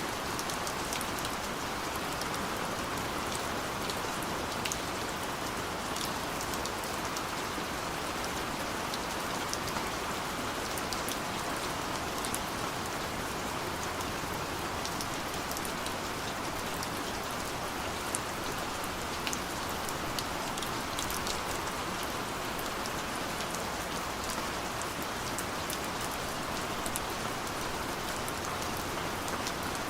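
Steady rain falling, with many fine drop ticks scattered over a constant hiss.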